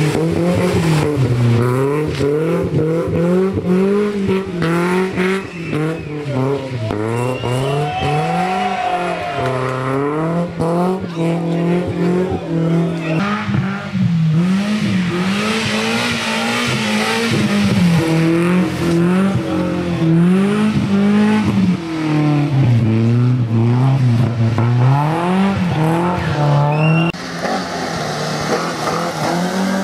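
Rally car engines revving hard, the pitch climbing and dropping over and over with gear changes and lifts, with tyre squeal and short sharp cracks and clatters over the top.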